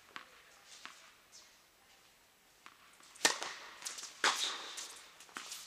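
Tennis balls struck by rackets and bouncing on the court during a doubles rally: a few faint pops, then two loud, sharp hits about a second apart past the halfway mark, followed by lighter clicks.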